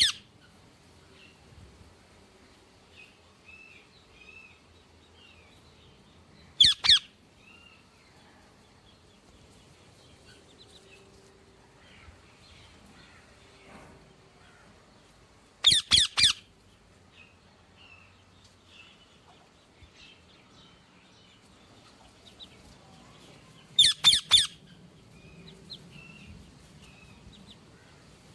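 A parrot giving loud, short, harsh squawks, one call or a quick pair or three at a time, several seconds apart. Faint small chirps sound in the gaps between them.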